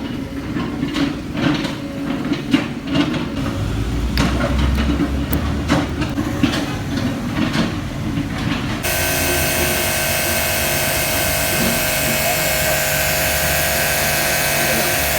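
Irregular knocks and clicks of hands and tools working on an electric pressure washer, then about nine seconds in the pressure washer switches on and runs steadily, a motor hum with a dense hiss.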